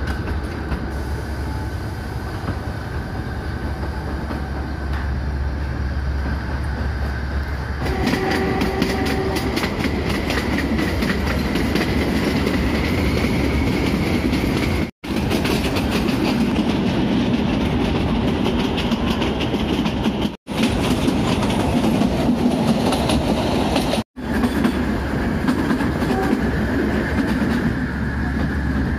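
Kangra Valley narrow-gauge toy train running, heard from inside a carriage, with the wheels clattering over the rail joints and a low rumble. It grows louder about a third of the way in as the train picks up.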